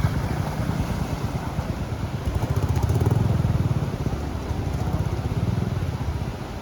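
Motorcycle engine running hard under load, its revs swelling around the middle and easing off near the end.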